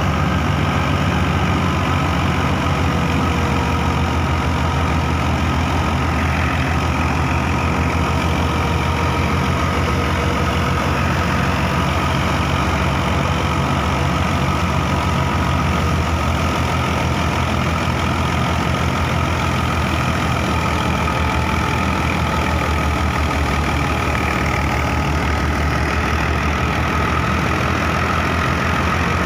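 Massey Ferguson 240 tractor's three-cylinder diesel engine running steadily at constant speed, with thin steady whining tones above the engine note, as from the wheat thresher it drives.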